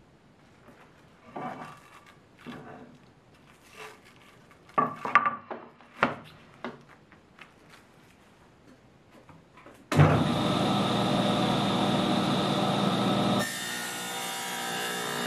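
Pieces of wood knocked and slid into place on a table saw's cast-iron top, a few scattered knocks. About ten seconds in the table saw starts abruptly and runs steadily, and its sound changes and drops a little near the end.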